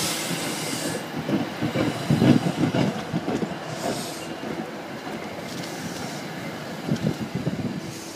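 Passenger coaches rolling past at close range as the train pulls into the station, their wheels clattering in uneven bunches over the rail joints over a steady rumble. The sound eases off toward the end as the train slows.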